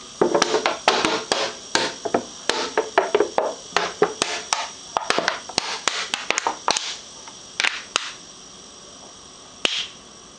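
Clear plastic bottle crackling and snapping irregularly as it crumples under suction from a refrigerator-compressor vacuum pump. The snaps come thick and fast for about eight seconds, thin out, and end with one last pop near the end.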